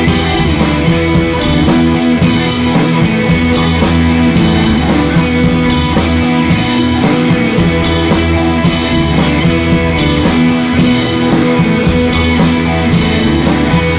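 Background rock music with guitar and drums and a steady beat.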